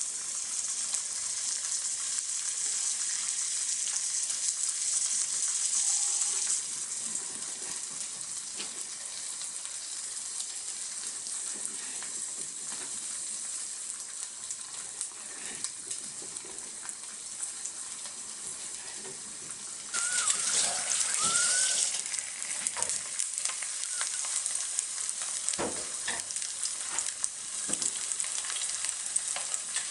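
Food frying in a pan with a steady sizzle. About two-thirds in the sizzle briefly grows louder, with a couple of short squeaks, then a few knocks of a utensil against the pan.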